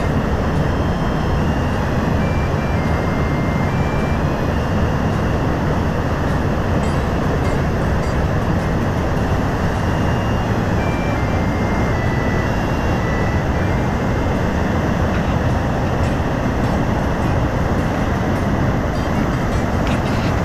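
Steady roar of rushing water from a mountain waterfall and stream, even and unbroken.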